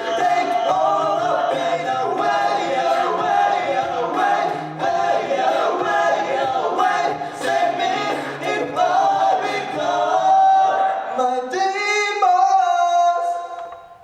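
An a cappella vocal group singing in close harmony over a sung bass line, with a steady percussive beat. About eleven seconds in the bass and beat stop and the voices step up to a final held chord that fades out, ending the song.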